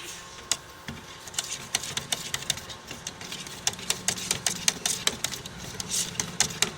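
Oil paint being mixed: rapid, irregular clicking and knocking, several strikes a second, getting busier after about a second, over a low steady hum.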